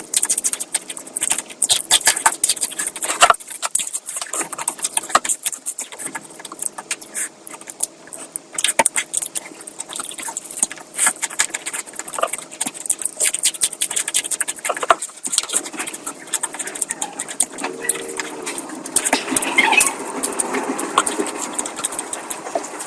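Close-miked eating sounds of a person eating curry: wet chewing, lip smacking and squelching in a rapid, uneven run of clicks. A short hum from the eater's voice comes near the end.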